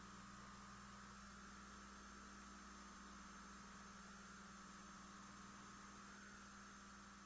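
Near silence: a faint, steady electrical hum with hiss and a faint high whine that wavers slightly in pitch.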